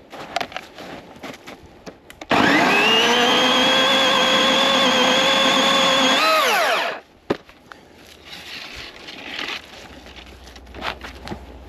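Master Force 80-volt battery chainsaw running at full throttle: its electric motor whine spins up quickly, holds a steady pitch for about four seconds, then winds down and stops when the trigger is released. Quieter rustling and footsteps come before and after.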